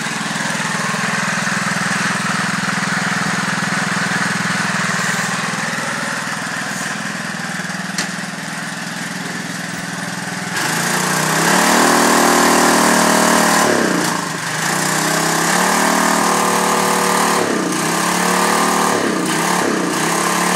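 Old four-stroke engine fitted to a late-1950s Lawn-Boy Loafer riding mower, running at a steady idle. About halfway through it turns louder and is revved up and down several times.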